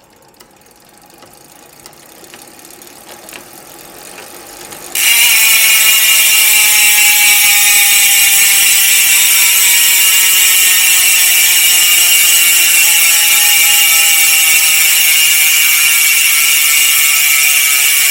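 Mountain-bike rear hub freewheeling, its pawls or ratchet clicking so fast they merge into a loud, high-pitched buzz. Faint ticking builds up, then the buzz sets in suddenly about five seconds in, its pitch slowly falling as the wheel coasts down.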